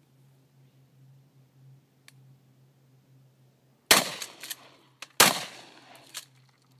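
Two pump-action shotgun shots about a second and a half apart, each a loud sharp blast trailing off in echo.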